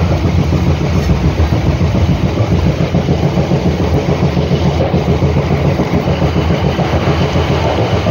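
MEMU electric multiple-unit train running at speed, heard from inside the coach: a steady, loud rumble of wheels on the rails.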